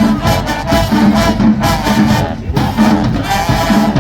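Marching band playing: brass horns holding loud chords over a steady drum beat, with short breaks between phrases.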